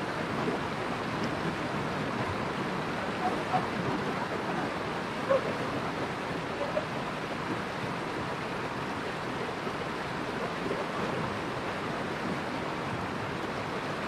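Steady rush of moving water, with a few faint brief sounds over it.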